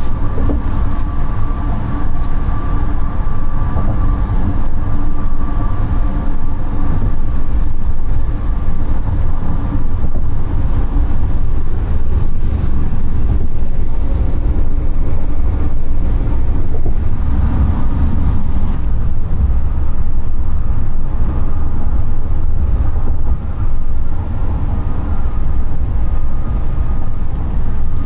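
Steady low road rumble inside a moving passenger van at highway speed, mostly tyre and engine noise, with a faint steady whine above it.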